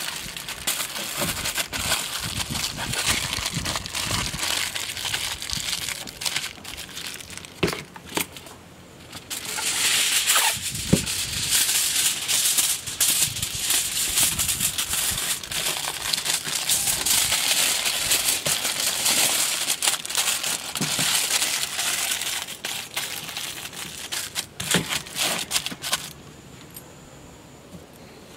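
Aluminium foil crinkling and crumpling as it is folded by hand around food, a dense crackle that grows louder about ten seconds in and stops about two seconds before the end.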